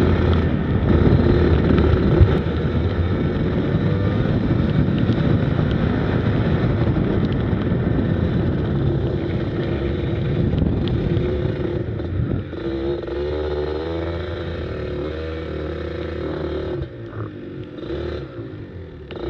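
Go-kart engine heard from onboard, running hard with its pitch rising and falling as the kart speeds up and brakes, getting quieter near the end.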